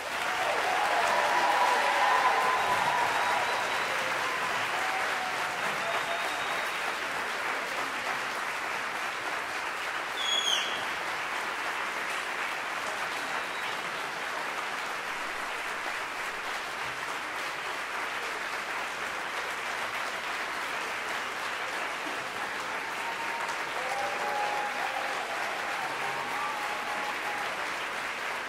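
A concert audience applauding steadily, with voices cheering near the start and again near the end, and one brief high, falling whistle about ten seconds in.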